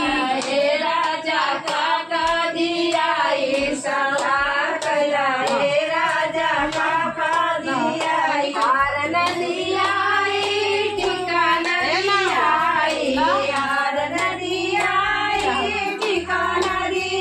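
A group of women singing a folk song together, with hand claps keeping time.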